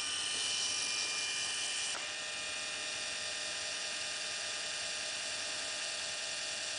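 Firgelli electric linear actuator's small DC motor and gear drive running steadily, a whirring whine as the rod travels, here retracting. A brief click comes about two seconds in, after which it runs slightly quieter.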